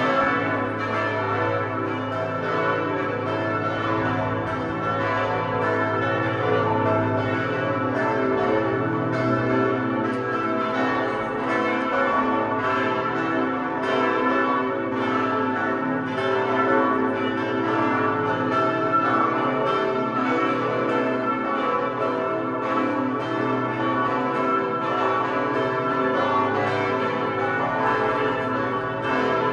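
Five large bronze church bells ringing together in a partial peal, cast by Pfundner in 1961 and tuned to A, B, C-sharp, E and the A an octave above, the largest weighing about 3.1 tonnes. Strokes overlap without a break over a sustained low tone.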